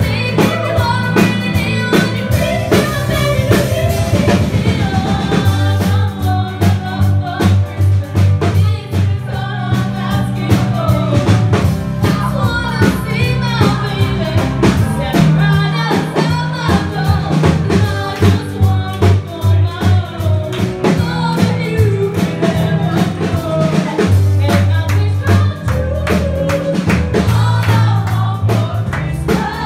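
Live band playing an upbeat pop-rock song: a singer over keyboard, acoustic guitar, bass and drums, with a steady driving beat.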